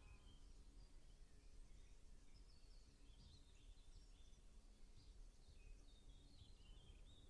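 Faint outdoor spring ambience: wild birds singing in short chirps and warbles, in a group at the start and again through the second half, over a steady low background rumble.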